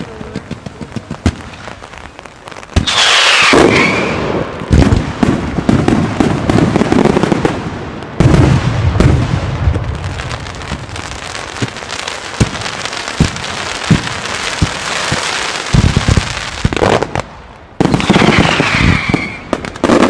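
Mascletà fireworks going off in quick succession: sharp bangs of shells and salutes bursting over a dense crackle. A whistle falling in pitch cuts in about three seconds in, and again near the end.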